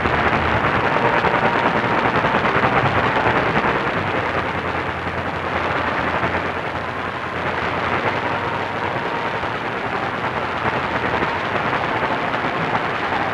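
AM radio static from a receiver tuned to a weak, distant station on 1490 kHz: a steady hiss and crackle, with a faint whistle coming and going. No voice or music stands out above the noise.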